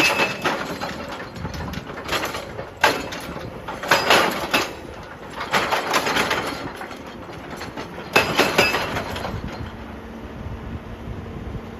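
Excavator working in rock, with loud irregular bursts of clanking and clattering rock over the low run of the machine, several times.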